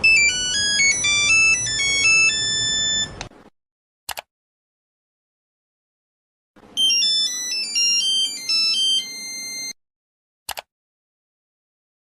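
Two mobile-phone ringtones in turn, each a fast, bright electronic melody of several notes at once, lasting about three seconds and cutting off suddenly. Each is followed about a second later by a brief click, with silence between.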